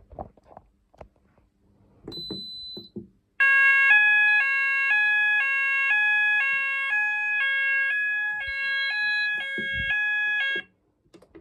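Fire alarm sounder on an Apollo AlarmSense system going into alarm: a short high beep, then a loud two-tone sounder alternating between a low and a high tone about every half second for about seven seconds, cutting off suddenly near the end.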